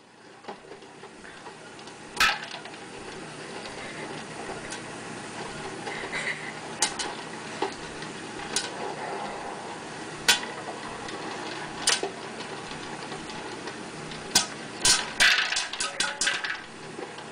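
Stirring popcorn popper with a clear dome lid heating its kernels: a steady hiss with single sharp pops every second or two, coming faster near the end as the kernels start to burst.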